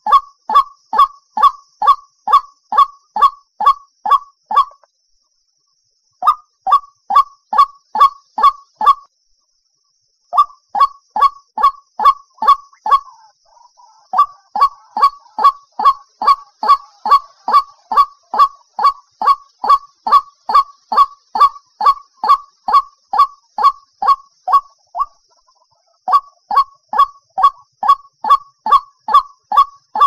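White-breasted waterhen calling its loud, repeated 'ruak' note, about two a second, each note sliding down in pitch. The calling comes in runs of several seconds, broken by short pauses.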